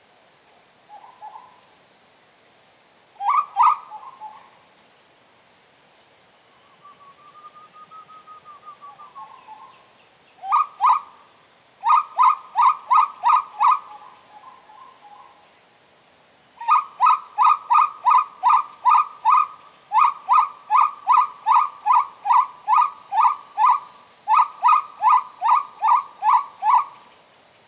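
Uru (spot-winged wood-quail) calls: loud runs of whistled notes, about four or five a second, in bursts of a few seconds, with fainter calls in the pauses. A steady faint high whine runs underneath.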